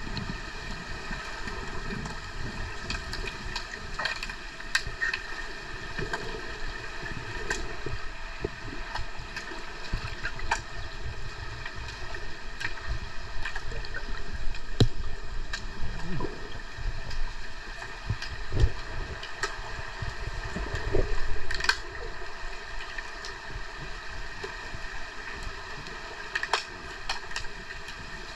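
Underwater pool sound picked up by a submerged camera: a steady hum of several tones over a low rush of water, with scattered sharp clicks and knocks from the underwater hockey game.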